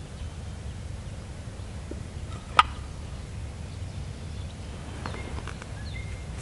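Wild turkey tom gobbling once, a short, loud call about two and a half seconds in.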